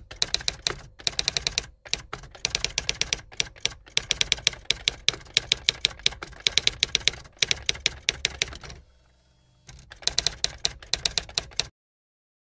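Typewriter sound effect: rapid runs of key clacks, with a short break about nine seconds in, stopping abruptly near the end.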